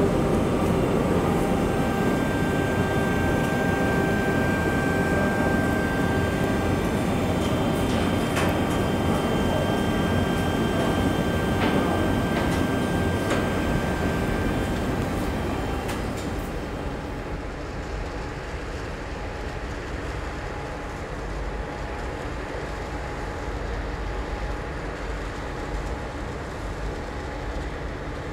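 Steady industrial machinery noise, a loud drone with a few held whining tones and some sharp metallic clicks and knocks. About halfway through it drops to a quieter, lower rumble.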